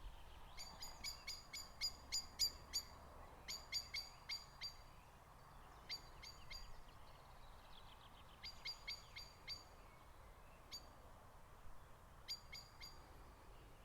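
A bird calling: quick runs of short, sharp, high chip notes, several a second, repeated in about half a dozen bouts with short pauses between.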